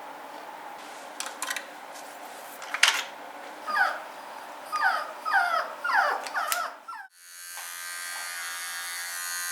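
Toy poodle puppy whimpering in several short, whiny cries, after a few sharp clicks. About seven seconds in, the sound breaks off briefly, then an electric grooming tool starts a steady buzz.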